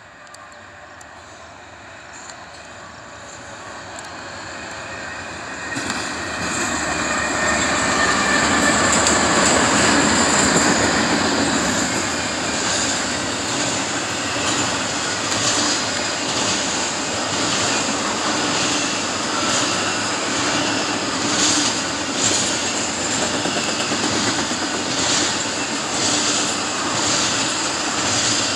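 A double-stack intermodal freight train led by a BNSF ET44C4 and two C44-9W GE diesel locomotives approaches and passes. It grows louder over the first six seconds and is loudest about eight to eleven seconds in as the locomotives go by. Then the container cars roll past with a steady rumble and repeated wheel clacks.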